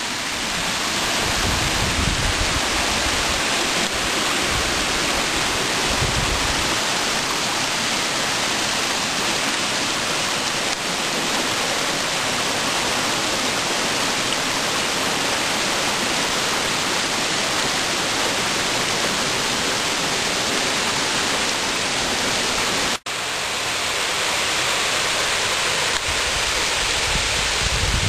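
Small forest waterfall cascading over boulders into its stream, a steady rushing of water; it cuts out for an instant about two-thirds of the way through.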